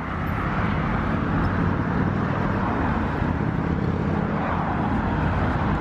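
Steady road traffic noise with a low engine hum, swelling during the first second and then holding steady.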